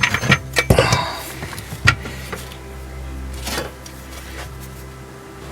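Steel parts of a hydraulic trolley jack clinking and knocking as they are handled and fitted. There is a cluster of sharp taps in the first two seconds, then quieter handling over a low steady hum.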